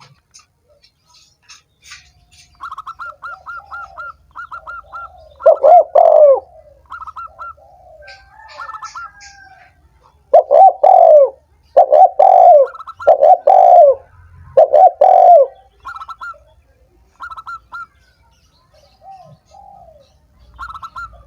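Spotted dove (tekukur) cooing: loud, low coo phrases, one about a third of the way in and then four in a row, a call used to stir captive doves into calling. Between them come quicker, quieter series of higher chirps from another bird.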